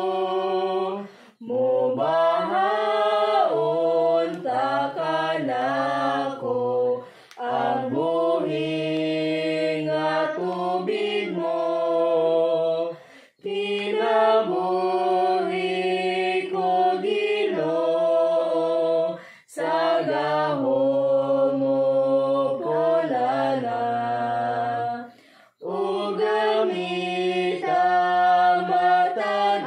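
Children singing a Cebuano hymn together, unaccompanied, in phrases of about six seconds with a short breath between each.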